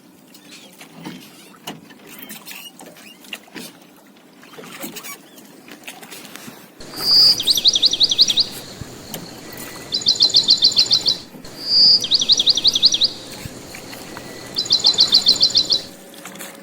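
Quiet background with scattered light clicks. About seven seconds in, loud high-pitched chirping trills start: four quick runs of rapid chirps in an alternating, regular repeating pattern, two of them opening with a short whistled note.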